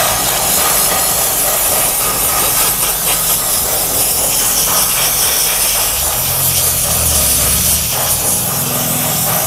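Handheld steam cleaner jetting hot steam onto fabric car-seat upholstery: a loud, steady hiss, with a low hum underneath that grows stronger about six seconds in.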